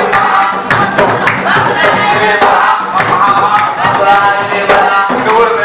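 Live Somali folk music: singing over a hand drum beat, with rhythmic hand clapping.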